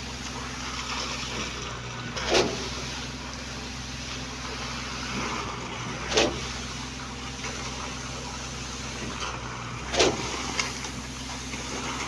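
Concrete pump's engine running steadily, with a surge of wet concrete through the delivery hose three times, about every four seconds, as the pump strokes.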